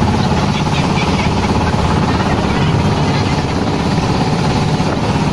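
Engine of a wooden motorboat running steadily under way, a loud, even rumble with a rapid pulse, heard from on board.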